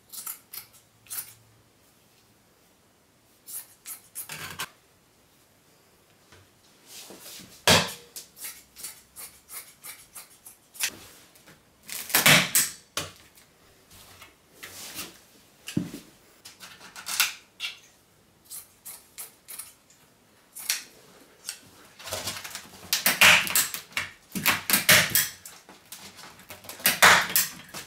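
Fabric scissors cutting through fleece fabric in irregular bursts of snips, with fabric rustling and small handling clicks between them; the cutting comes thickest near the end.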